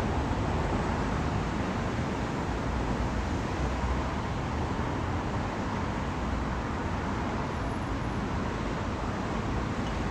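Steady background noise, a low rumble with hiss, with no distinct events.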